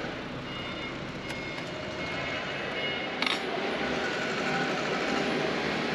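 Steady low running noise of an idling truck, heard from inside its cab, with faint high beeps in the background and a single sharp click about three seconds in.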